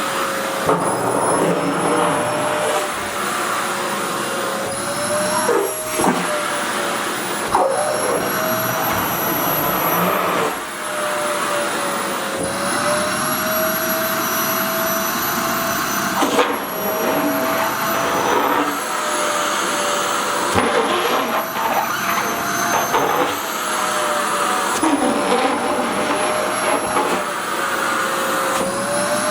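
SHARP EC-KP7F-A vacuum cleaner running with a steady suction hiss, its motor whine rising and falling in pitch every few seconds as the skirt's fabric is drawn against the nozzle, with a few short clicks.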